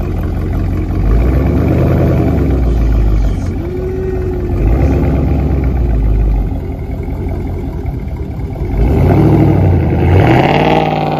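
Dodge Charger Scat Pack's 392 (6.4-litre) HEMI V8 revving as the car moves off, its exhaust swelling louder in bursts and climbing in pitch near the end.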